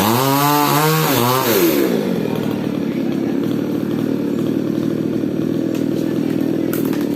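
Falcon mini chainsaw running, its engine speed swinging up and down several times in the first two seconds, then settling into steadier running.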